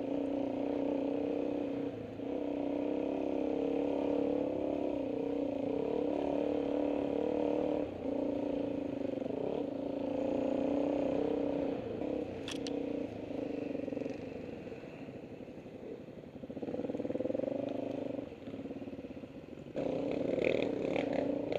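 Dirt bike engine running close by as the bike is ridden, its pitch rising and falling with the throttle and easing off briefly every few seconds. Near the end come a few rattling knocks as the bike goes over rough ground.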